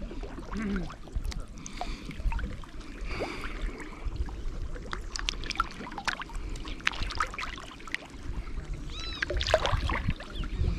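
Water splashing and sloshing in irregular bursts as feet wade through shallow water, over a low rumble.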